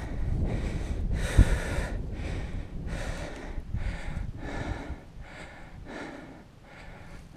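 A climber's heavy, quick breathing from the effort of scrambling up steep rock, one breath roughly every half-second to second, over a low rumble, with a single sharp knock about a second and a half in. The breaths grow quieter in the second half.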